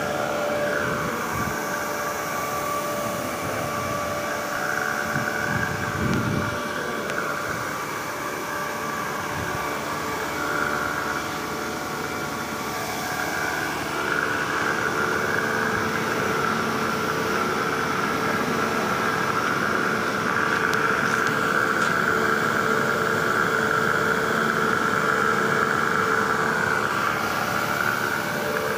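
Atlas Copco tank-mounted electric vacuum pump running steadily: a constant mechanical hum with a steady whine over it.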